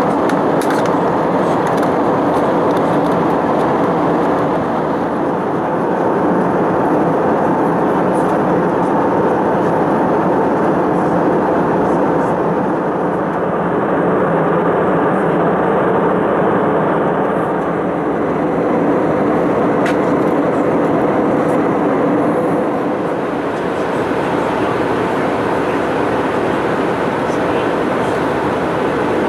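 Steady cabin noise inside an Airbus A319 in flight: an even rush of airflow and engine drone, with a few faint steady hums.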